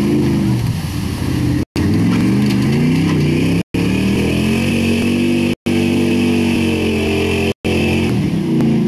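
A pickup truck's engine revving hard as the truck plows through a mud bog pit, the pitch climbing and falling repeatedly as the driver works the throttle.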